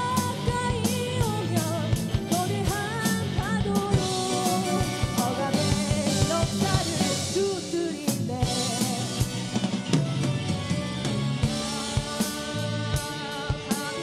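A live band playing a song in Korean: women singing into microphones over electric guitar and a drum kit, with cymbals washing around the middle.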